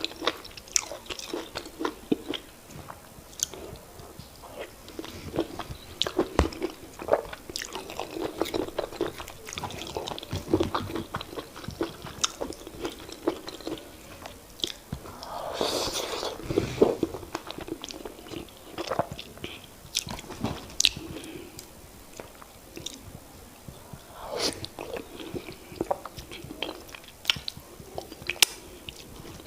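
Close-miked mouth sounds of eating semolina fufu with oha soup: wet chewing and smacking with many sharp clicks, and a denser, louder stretch about halfway through.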